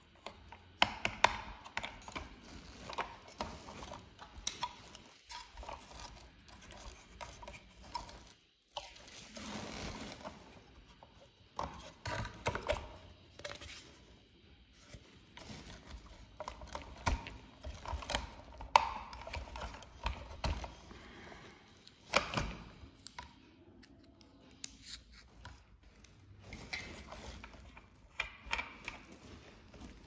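Plastic toy tractor being handled and pulled apart by hand: irregular clicks, taps and knocks of hard plastic parts, with a short stretch of rustling about nine seconds in.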